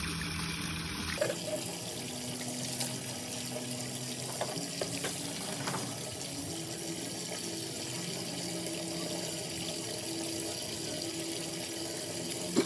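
Water running steadily from a tap, an even rushing hiss.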